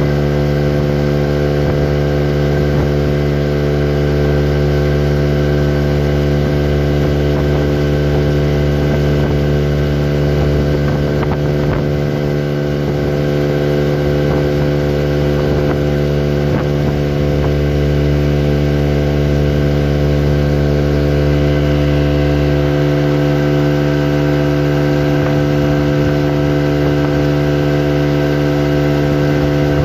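Boat motor running at a steady, unchanging speed while the boat cruises along, a constant drone.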